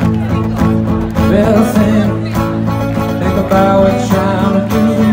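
Solo acoustic guitar strummed live through a festival PA, with singing over it from about a second in.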